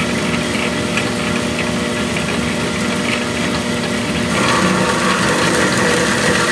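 Clausing Kalamazoo horizontal bandsaw cutting through 416 stainless steel round bar: a steady machine hum under the noise of the blade in the steel. It grows a little louder and harsher about four seconds in.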